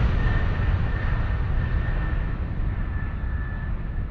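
A steady low rumbling noise with a faint high whine above it, slowly fading.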